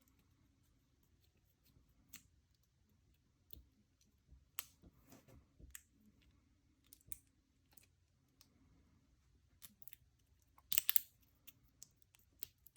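Scattered small metallic clicks and scrapes of a padlock's parts being worked with a tool while it is taken apart, with a louder burst of clicks about eleven seconds in.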